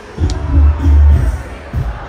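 Loud music with deep, heavy bass notes, played over a concert sound system.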